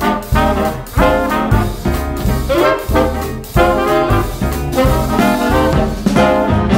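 Upbeat swing-style background music with brass horns playing over a steady, punchy beat.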